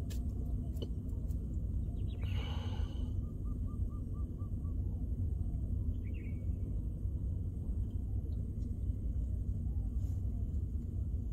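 Steady wind buffeting the microphone over open water. About two seconds in, a bird gives a short harsh call followed by a quick run of about six even hooting notes, and a brief chirp sounds around six seconds in.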